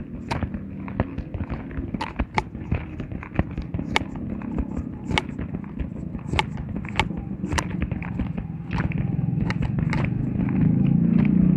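Scattered sharp clicks and cracks, a few each second at uneven intervals, over a low rumble that grows louder near the end.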